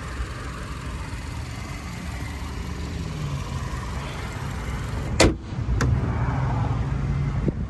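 A Cadillac CTS 2.0-litre turbo four-cylinder idling steadily, then the car's hood is slammed shut about five seconds in, followed by a second, lighter knock just after.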